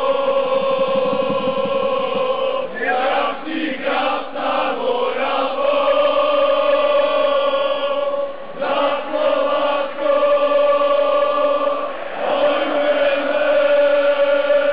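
A large crowd of football supporters singing a chant together in the stand, many voices holding long notes with shorter choppy phrases in between.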